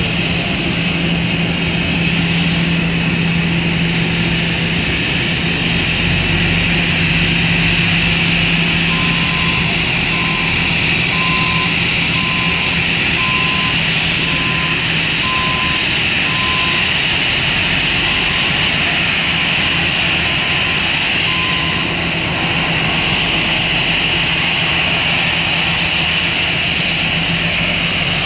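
Steady jet whine of a taxiing Airbus A321 airliner, with a low steady hum that stops about halfway through. Through the middle a beeper sounds a row of short beeps, about one a second.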